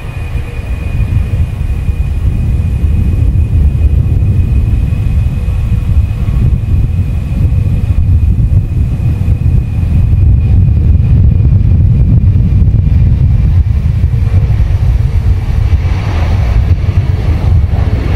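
Turbofan engines of a C-17 Globemaster III at takeoff power during its takeoff roll: a loud, deep rumble that builds over the first few seconds and then holds. A thin steady whine fades out about halfway through, and the sound grows harsher near the end as the aircraft lifts off.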